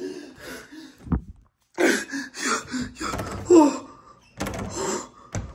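An interior door thuds twice, once about a second in and again near the end, with indistinct voice sounds between the thuds.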